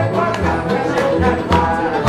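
Music with singing over a moving bass line and light percussion.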